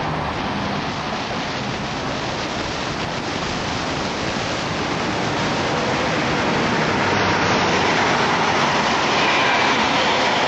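Street traffic: a steady hiss of tyres on a wet road, growing louder near the end as a car approaches.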